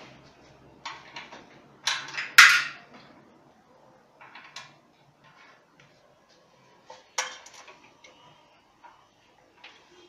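Metal clinks and knocks as the transmission's metal mounting bracket and its small screws are handled and set in place against the washing machine's plastic tub. There are scattered clatters, the loudest about two and a half seconds in and another cluster about seven seconds in.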